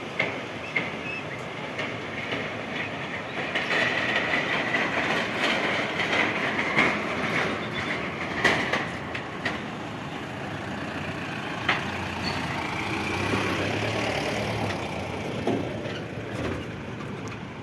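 Mahindra Bolero camper driving off-road, a steady running rumble with its body rattling and scattered sharp knocks over rough ground.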